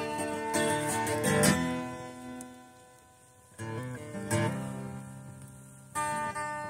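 Acoustic guitar strummed, each chord left to ring and fade. The sound dies almost away about three seconds in before new chords are struck.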